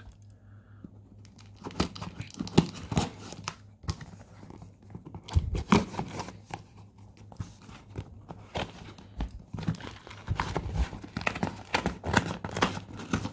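Packing tape and a paper shipping label being peeled and torn off a cardboard box, with crinkling and irregular knocks as the box is handled.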